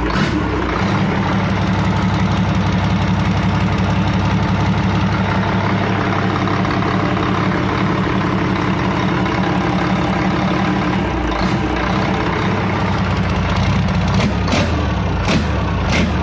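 Doosan DX12 inline-six diesel engine idling steadily just after an overhaul, running normally, with a slight change in its low note about eleven seconds in. A few sharp clicks come near the end.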